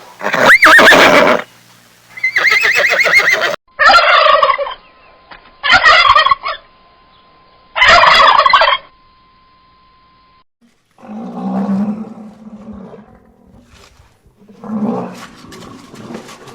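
Domestic turkey gobbling: three loud, rattling gobbles about two seconds apart, with a loud call before them and lower, quieter calls in the second half.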